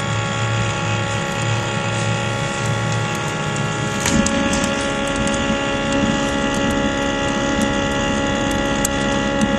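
Electric artificial blower on a miniature steam locomotive's chimney, running with a steady multi-tone whine to draw the fire while steam is raised. About four seconds in a metal knock comes as the firehole door is worked, the low part of the sound shifts, and faint ticks follow.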